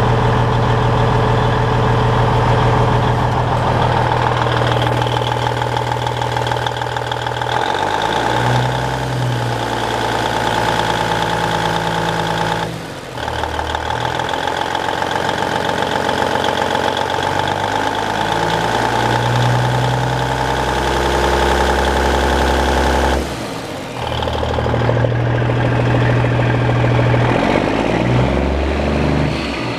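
Cummins Celect six-cylinder diesel in a 1999 Peterbilt 379 idling steadily. It is heard in turn from inside the cab, under the open hood and beside the exhaust stack, and its tone changes abruptly twice as the listening position jumps.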